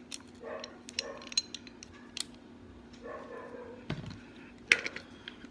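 Glock 17 Gen 4 slide parts being handled during reassembly: scattered light metal and polymer clicks as the recoil spring assembly is fitted, with one sharper click near the end.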